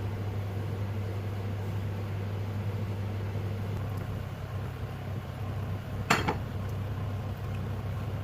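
A steady low mechanical hum runs throughout, and about six seconds in a dish clinks once sharply with a short ring.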